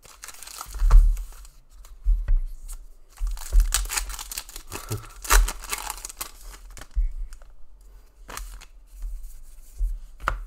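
NRL Elite trading card packs being torn open, the wrappers crinkling in repeated rustling bursts, with the cards clicking and flicking as they are pulled out and sorted. Low thumps of hands and packs knocking the table come in between.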